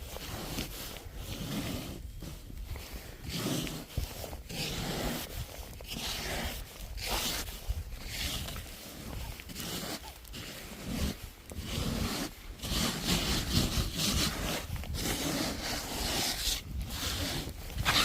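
Long-handled snow scraper sweeping thick snow off a car in repeated rough, scraping strokes, one after another at an uneven pace.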